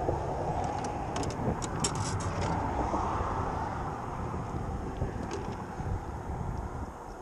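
Steady rush of road traffic passing on the bridge, with a few light clicks about one to two and a half seconds in; the traffic eases slightly near the end.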